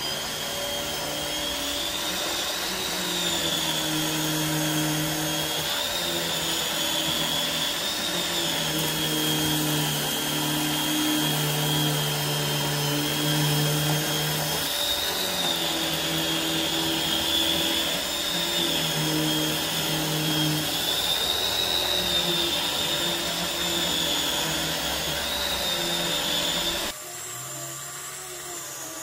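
Dyson DC21 Motorhead canister vacuum running, its motorized powerhead pushed back and forth across a rug. A high motor whine wavers up and down in pitch with each stroke over a lower hum. It drops abruptly in level near the end.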